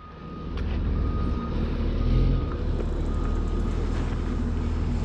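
Low, steady rumble of wind buffeting an action camera's microphone, with a few faint clicks and a thin high tone that comes and goes.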